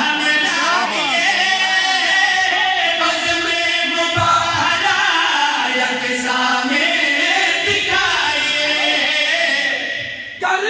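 Men singing a qaseeda, a devotional Urdu/Punjabi poem, in chorus, several voices together on long held lines. The singing drops away and cuts off abruptly near the end.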